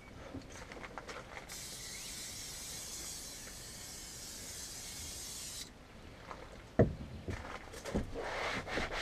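Aerosol can of shine-and-protectant spraying one steady hiss for about four seconds onto a plastic UTV door panel. A knock follows, then a rag rubbing over the plastic near the end.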